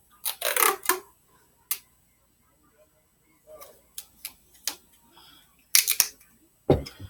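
Small objects being handled at close range: irregular clusters of sharp clicks and taps, the loudest group near the end, followed by a heavier knock.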